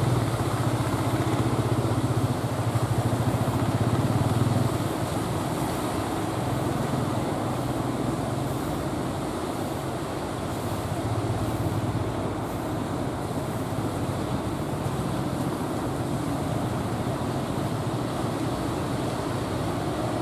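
A fishing boat's engine running steadily as the boat pushes through breaking surf, over a wash of surf and wind noise. The engine is a little quieter after about five seconds.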